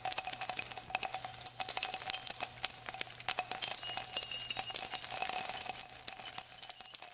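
Bells jingling rapidly and continuously, with many quick strikes over a held ringing tone, fading out near the end.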